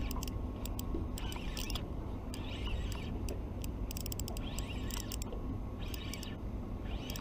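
Spinning reel handled right at the microphone, giving short mechanical clicks and rasps about once a second, with a quick run of clicks about four seconds in, over a steady low rumble.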